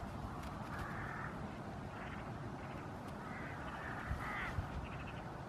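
A few short, harsh animal calls, one about a second in and a cluster between three and four and a half seconds in, over a steady low rumble.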